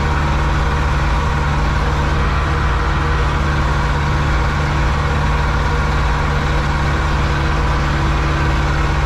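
Zetor 7245 tractor's four-cylinder diesel engine running steadily under load, heard from inside the cab, as it pulls a loaded wheat trailer.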